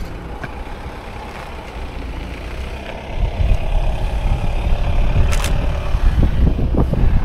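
Wind buffeting the microphone: a low rumble that grows stronger about three seconds in, with a faint hum under it and a single short click about five seconds in.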